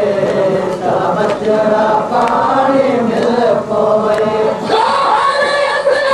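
A group of men chanting a noha, a Shia lament, together, with regular sharp slaps keeping the beat. About three-quarters of the way through, a higher, brighter voice comes to the fore.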